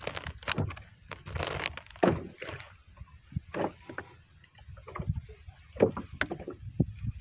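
Irregular knocks, bumps and rustles of handling inside a small fishing boat, with a few louder thumps against the hull.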